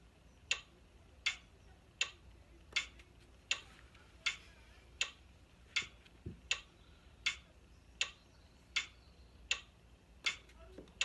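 Phone metronome app clicking steadily at 80 beats per minute, one sharp click about every three-quarters of a second, keeping time for a putting stroke.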